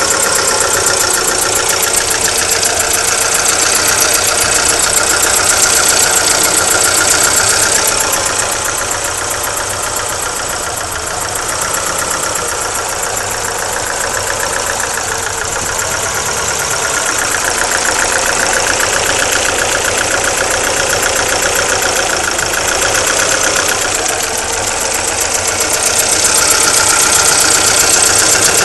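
Alfa Romeo 156 engine running steadily with a hiss coming from the engine, of unknown cause. The hiss is stronger for the first several seconds, eases, and comes back near the end.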